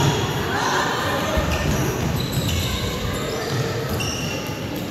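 Indoor youth soccer game in a gym: sneakers squeaking on the hardwood floor and the ball thudding, under the chatter and shouts of players and spectators echoing in the hall.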